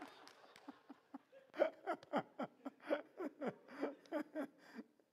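People laughing. It starts about a second and a half in as a run of short, pitched ha-ha bursts, about four a second, and dies away near the end.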